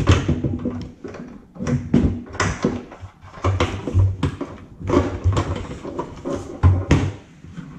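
Irregular clicks, knocks and dull thumps of hard plastic and metal parts as a Holley dual drop-in fuel pump assembly is turned and test-fitted into the opening of a fuel cell.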